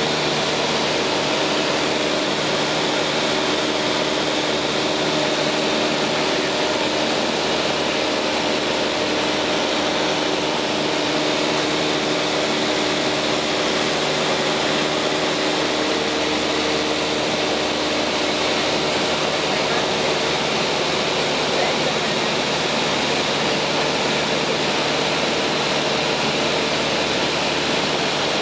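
Steady drone of a Cessna 152's four-cylinder Lycoming engine and propeller in level flight, heard inside the cabin with wind rush over it. Engine speed holds constant throughout.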